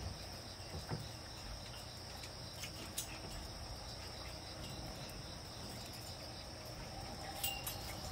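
Steady high-pitched insect chirring, with a few faint clicks and knocks about a second in, at three seconds and near the end.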